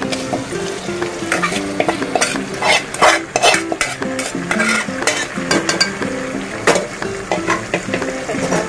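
Steel spoon scraping and clinking against a steel bowl as marinated chicken drops into hot oil and fried onions in a pressure cooker, the oil sizzling. Soft background music with a simple melody runs underneath.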